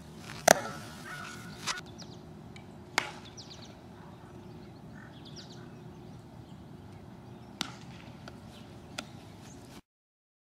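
Outdoor ballfield background with several separate sharp knocks, the loudest about half a second in and others near 2 s, 3 s, 7.5 s and 9 s, and a few faint bird chirps in between. The sound cuts off suddenly near the end.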